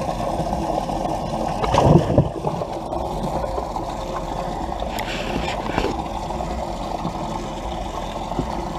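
Steady low hum of a running motor on a bass boat, with water gurgling and one louder knock about two seconds in.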